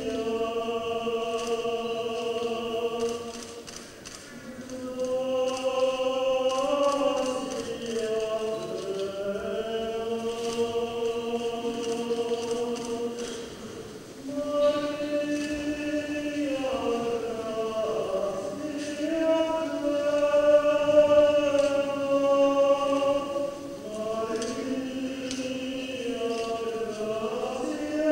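Voices singing a slow, chant-like hymn in long held notes, with short breaks between phrases.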